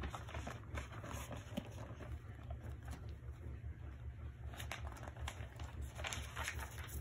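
Thin paper pages of a softcover picture book rustling and crinkling as they are handled and turned, in two spells: around the start and again over the last couple of seconds. A steady low hum runs underneath.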